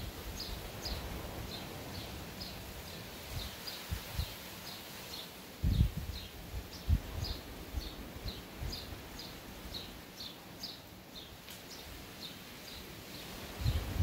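Short, high chirps from a small animal repeat about twice a second over a steady outdoor hiss. A few brief low thumps of wind hit the microphone, the strongest about six seconds in.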